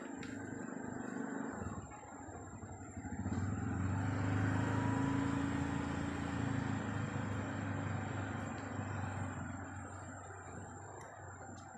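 A motor vehicle passing by: a steady engine drone that swells about three seconds in, is loudest a couple of seconds later, then slowly fades.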